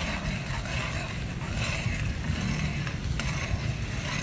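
Metal spoon stirring popcorn kernels in melted butter in an aluminium wok, with a sharp knock about three seconds in, over a steady low rumble.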